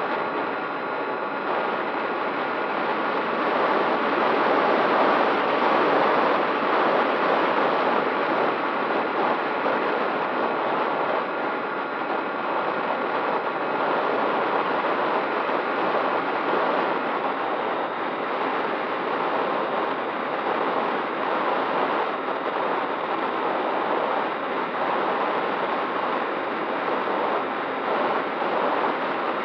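Steady rush of air over the onboard camera of a model aircraft in flight, with a faint steady whine running underneath.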